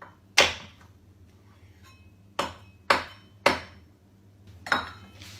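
Five sharp knocks: a loud one near the start, three about half a second apart a little after two seconds in, and a last one near the end.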